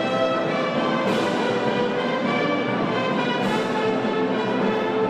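A wind band of clarinets and brass playing a slow melody in long held notes.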